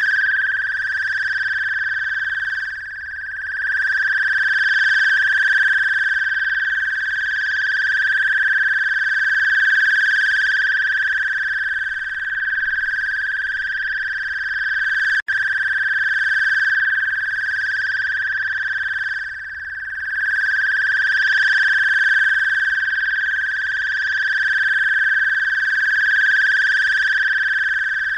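A steady, high-pitched electronic tone with overtones, wavering slightly in loudness and cutting out for an instant about halfway through.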